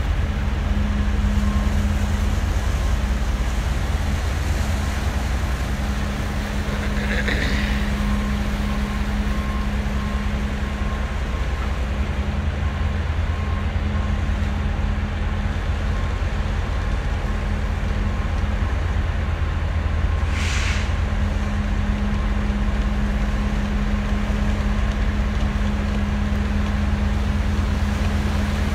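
Steady low engine drone with a constant hum, broken by two short hisses, one about a quarter of the way in and one about two-thirds through.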